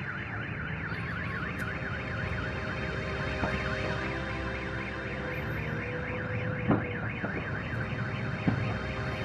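Car alarm sounding in rapid up-and-down sweeps, about four a second, with a dull thump about two-thirds of the way through.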